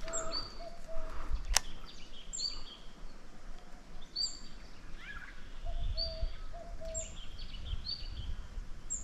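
Birds calling: a short high call repeated every second or two, and a lower call of three or four even notes heard twice. A single sharp click about one and a half seconds in.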